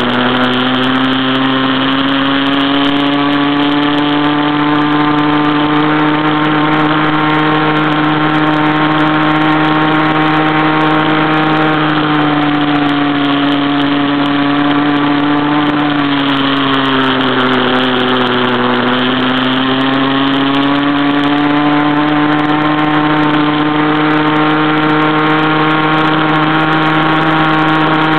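Stock CAG pocket bike's small two-stroke engine running steadily at high revs under way, heard close up from the steering head. Its pitch sags for a few seconds past the middle, then climbs back and holds.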